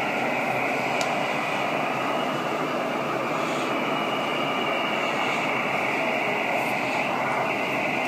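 Steady hiss of band noise from an Elecraft KX3 shortwave transceiver receiving 40 m (7 MHz) lower sideband between transmissions, with no station on frequency. The hiss is thin and muffled, with the highs cut off by the receiver's narrow sideband filter.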